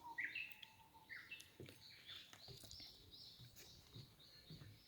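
Faint birdsong in a forest: several birds calling with short chirps and slurred whistled notes throughout, and a few soft clicks.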